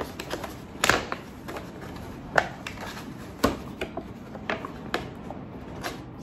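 A hand rummaging inside a paper shopping bag of snack packets: irregular rustling and crackling of paper and wrappers, with sharper crackles about a second in and again near the middle.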